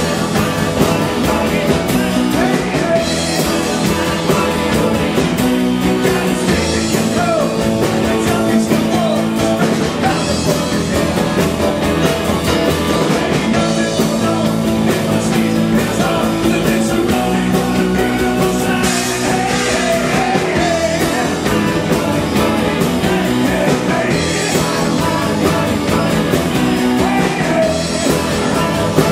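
Live rock band playing: a man singing lead over electric guitars, bass guitar and a drum kit, loud and continuous.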